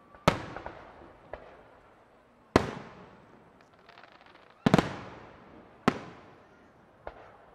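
Aerial firework display shells bursting overhead: a sharp bang every second or two, each trailing off in an echo, one of them a quick double bang, with fainter pops and crackle between.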